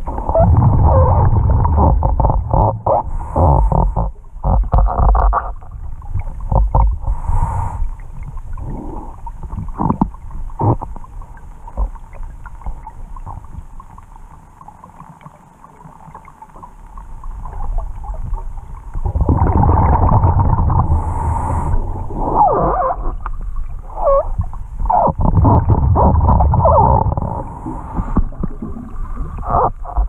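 Scuba diver's regulator breathing heard underwater: exhaled bubbles gurgling and rumbling, dying down to a quieter lull about halfway through, then bubbling loudly again for the last third.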